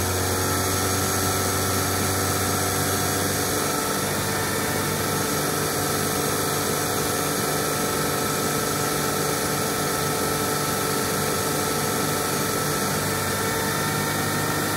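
2000 Toyota Tacoma engine running steadily above idle, its pitch rising about four seconds in as the revs are raised. The higher speed spins the water pump faster to push air bubbles out of the newly refilled cooling system.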